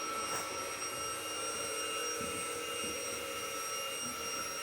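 Bobi robot vacuum running, a steady motor whine made of several unchanging tones over a faint hiss.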